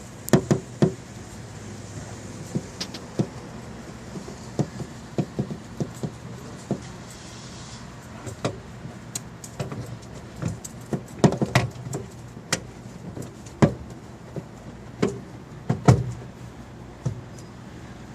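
Irregular clicks and knocks of plastic tail-light parts and bulb sockets being handled and fitted back into a Toyota Corolla, over a steady low hum.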